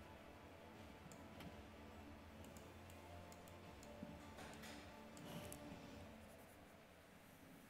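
Near silence: a faint steady low hum with a few soft clicks and short scratches scattered through it.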